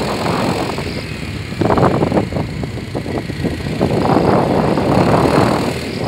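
Noise of a moving road vehicle: steady engine and road rumble, with a run of knocks or rattles about a second and a half in.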